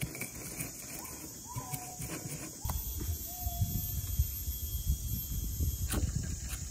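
Outdoor garden ambience: a steady high hiss with a few short bird calls that dip in pitch in the first few seconds, over a low rumble. A sharp knock about six seconds in, of a kitchen knife striking a wooden cutting board.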